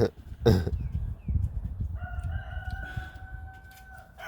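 A rooster crowing: one long, steady call about two seconds in, lasting about two seconds. It comes after a brief loud sound about half a second in.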